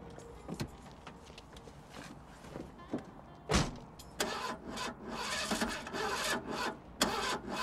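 A car door shuts with a loud thump about three and a half seconds in, then a car engine is cranked and started, a run of repeated strokes.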